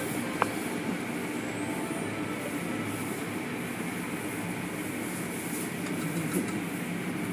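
Automatic tunnel car wash heard from inside the car: a steady rumble of machinery and spray as hanging cloth strips sweep over the windscreen, with a single sharp tap about half a second in.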